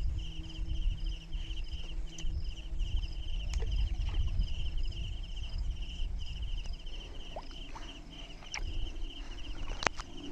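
Insects chirping steadily in a fast pulsing trill, over a low rumbling noise, with a few short sharp clicks, the loudest near the end.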